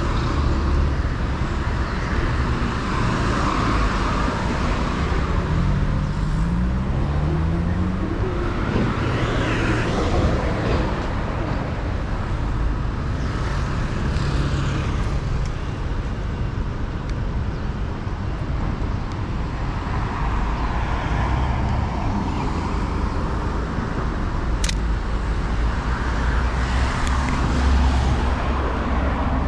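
Street traffic: motor vehicles running and passing over a steady low rumble, with one vehicle's engine note rising about six to eight seconds in. A single sharp click comes near the end.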